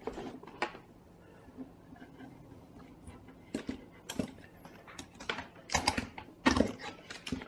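Scattered clicks and knocks of small objects being handled and set down on a workbench, about eight in all, irregular, the loudest about six and a half seconds in.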